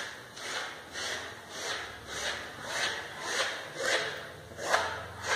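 A notched texturing comb rubbing through wet wall paint in repeated arc-shaped sweeps. There are about nine swishing strokes, a little under two a second.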